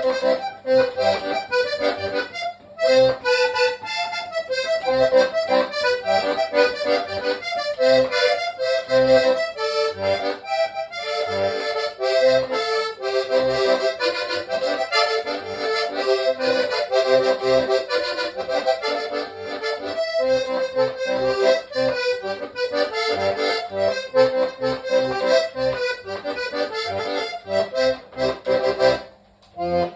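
Hohner Trichord three-row diatonic button accordion playing a tune, a melody with chords over short, regularly repeated bass notes. The playing breaks off briefly near the end.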